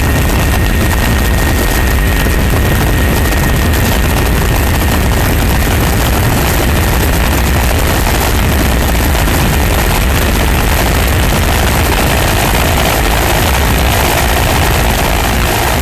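An engine running steadily and loudly, with a deep low rumble and an even hiss over it.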